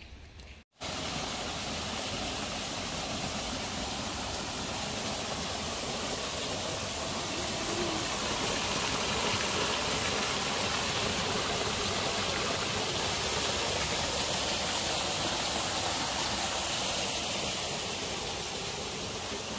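Water rushing and splashing down a small rocky stream and low cascade: a steady rushing noise that starts abruptly about a second in.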